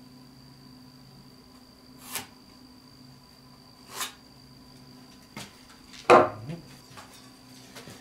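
Timber being handled on a workbench: two short scrapes, then a loud wooden knock about six seconds in as a small wooden block is set down on a board, over a steady low hum.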